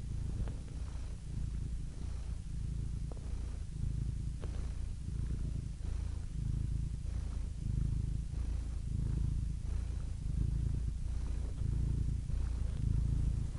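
Domestic cat purring steadily, a low rumble that swells and eases with each breath in and out.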